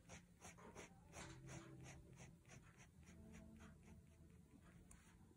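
Staedtler Pigment Liner 0.1 fine-tip pen scratching faintly on paper in quick, short, even strokes, about four a second, hatching in fur.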